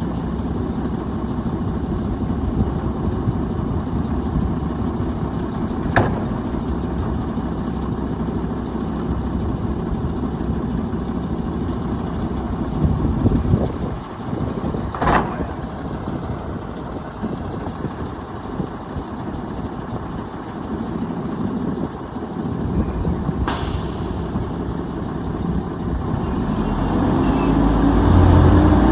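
Mack LE garbage truck's diesel engine running steadily, with a few sharp knocks along the way. Near the end it speeds up with a rising whine.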